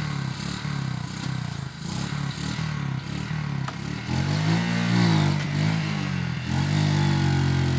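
A small engine running nearby, rising and falling in speed about halfway through, then holding a steady, slightly faster note near the end.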